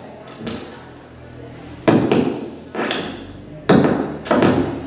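Noise music: harsh bursts of noise that cut in suddenly and die away within a second, about five of them at uneven intervals.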